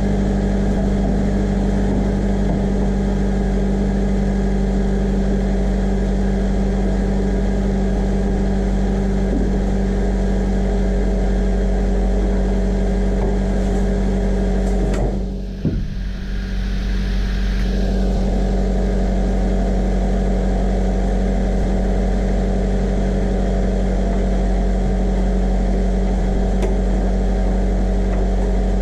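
Subaru Sambar kei truck's four-cylinder engine idling steadily with its deck lid open, as the cooling system is topped up and bled of air after a coolant leak repair. The sound briefly drops out about halfway through.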